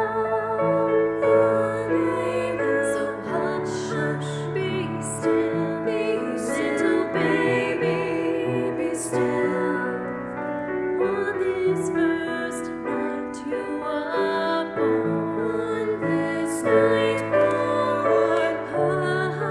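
A vocal trio singing a slow, gentle Christmas song with piano accompaniment; the sung notes waver with vibrato over sustained piano chords.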